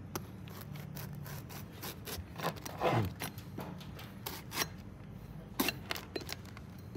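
Knife blade scoring along the seams of a durian's spiky husk: irregular scraping and cutting strokes with scattered sharp clicks, the loudest about three seconds in.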